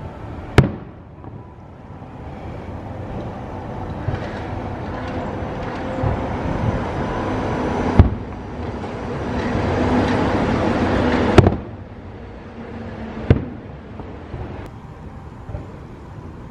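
Walt Disney World monorail train passing close by, its running noise building over several seconds and then dropping away suddenly about eleven seconds in. Sharp firework bangs cut through it, the loudest about half a second, eight, eleven and thirteen seconds in.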